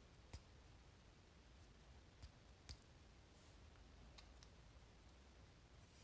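Small metal parts of a disassembled Kaba Ace dimple lock clicking and tapping as the cylinder, a flat tool and tweezers are handled to get the pins out. There are about five faint, sharp clicks: one shortly after the start, two close together around the middle, and two more about two-thirds of the way through.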